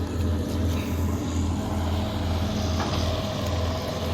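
A boat's engine running steadily, a low droning hum that pulses evenly.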